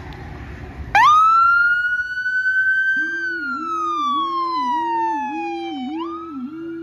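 Emergency vehicle siren switched on in wail about a second in: it rises quickly, holds high, then slowly falls and rises again. From about three seconds in a low-pitched Howler tone sounds underneath, pulsing with about one and a half dips a second.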